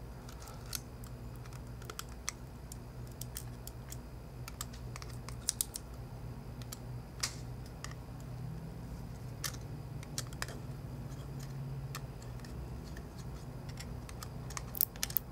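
Faint scattered clicks and ticks of a small precision screwdriver loosening the iPhone 4's side screws, with a few quick clicks near the end, over a steady low hum.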